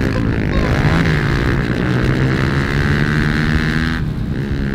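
Pit bike engine running hard at high revs, its pitch dipping and climbing again about half a second in and once more near the end.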